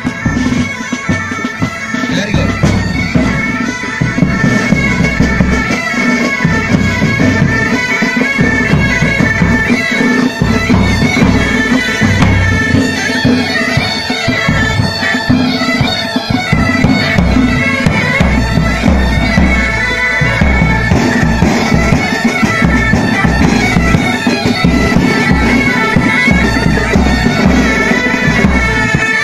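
Pipe band playing: bagpipes sound a steady drone under a chanter melody, over marching drums beating time.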